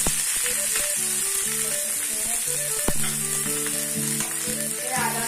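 Chopped onions, cumin seeds and freshly added green chillies sizzling steadily in hot oil in an iron kadai, with two sharp knocks: one at the start and one about three seconds in.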